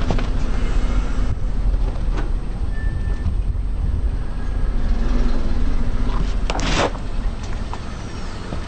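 Car rolling slowly over a whole pumpkin on asphalt: a steady low rumble of engine and tyres, with one short loud noise about six and a half seconds in as the tyre presses onto the pumpkin.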